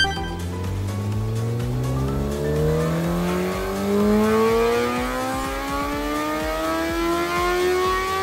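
Honda CBR954RR inline-four engine revving up under load on a chassis dyno, its pitch climbing steadily and smoothly through the rev range for the whole stretch.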